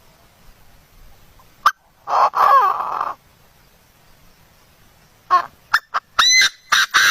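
Bird calls: a click, then one drawn-out, wavering call a couple of seconds in, then a run of short calls near the end.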